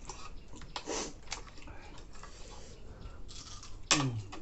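Close eating sounds: chewing and crunching with small clicks and smacks. About four seconds in there is a short vocal sound that falls in pitch.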